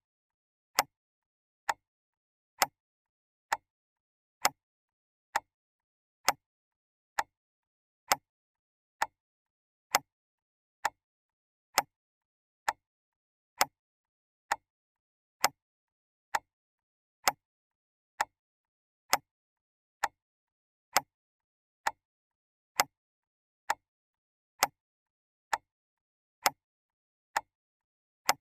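Clock ticking steadily, one sharp tick a little under every second, with silence between the ticks.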